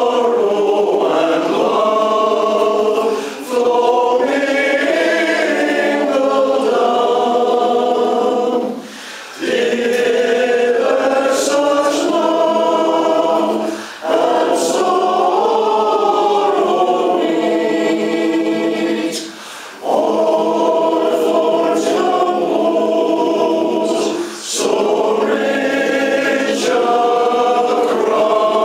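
Male voice choir singing in parts, in phrases of about five seconds, each followed by a short break for breath.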